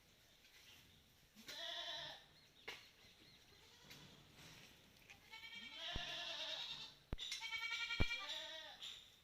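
Malabari goat bleating three times, each call wavering and arching in pitch, the second and third longer than the first. A few sharp clicks come between the later calls.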